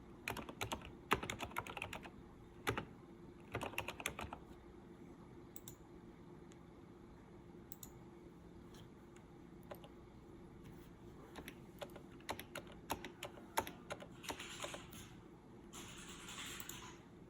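Typing on a computer keyboard: quick runs of key clicks in the first few seconds, then scattered single keystrokes, with a short rustle near the end.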